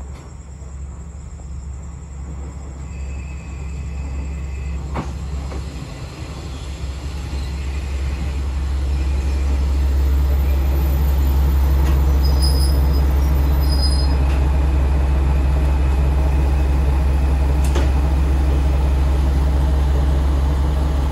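Diesel railcar of the JR Kyushu KiHa 40 type pulling in alongside the platform and stopping. Its engine hum grows louder as it draws near and then runs steadily while it stands. There are a few brief high squeals along the way.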